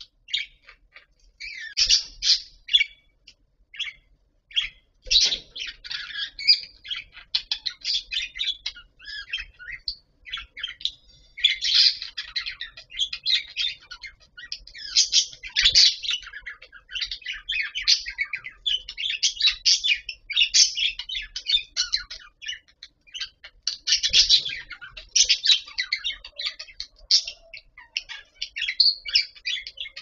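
Budgerigars chattering and warbling without pause in many rapid chirps, with a few brief low thumps about five, sixteen and twenty-four seconds in.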